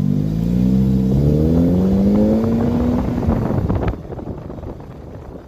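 Polaris Slingshot's four-cylinder engine through a cat-deleted Thermal RD dual exhaust, accelerating on the road with its pitch rising for about three seconds. About four seconds in the engine sound drops away suddenly, leaving quieter wind noise.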